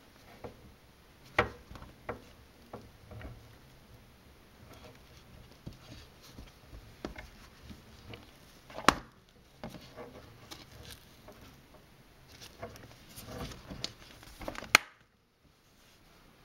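A Dandeli genuine leather bifold wallet being handled: scattered soft taps, rubs and rustles of leather, with a few sharper clicks, the loudest about a second and a half in, about nine seconds in and just before the end, where the sound cuts off suddenly.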